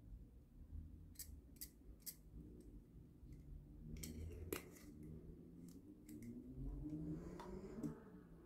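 Faint, sharp clicks and ticks of small plastic bottles and caps being handled. There are three clicks in the first two seconds, the loudest cluster comes around four and a half seconds in, and lighter ticks follow.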